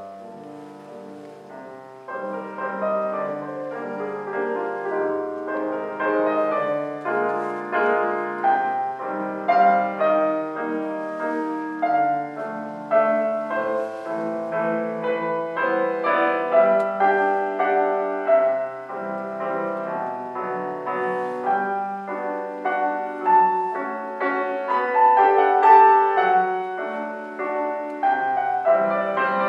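Solo piano music: a melody over lower chords, soft for the first two seconds and then fuller.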